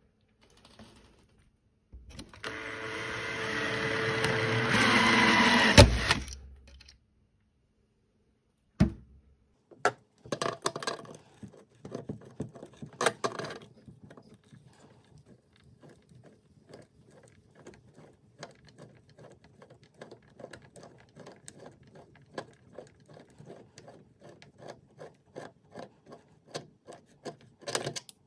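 A power drill runs for about four seconds, growing louder, and stops abruptly. After a pause and a knock, a long run of small irregular metal-on-wood clicks and creaks follows as pliers grip a screw and twist it out of the pine board.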